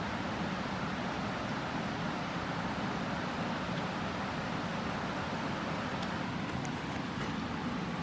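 Steady, even rushing background noise with no change in level, and a few faint ticks near the end.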